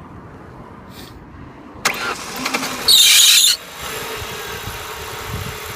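A car engine cranking and starting about two seconds in, with a loud, high-pitched squeal for about half a second just after it catches, then settling into a steady idle. This is the whistle and squeal whose cause the owner is asking about.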